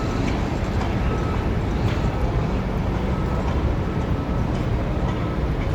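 Tractor engines running with a steady low rumble, a faint high tone coming and going above it.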